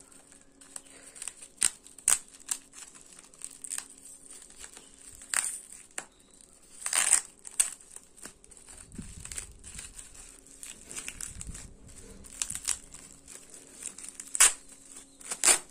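Plastic bubble-wrap packaging crinkled and pulled open by hand, with irregular sharp crackles and snaps.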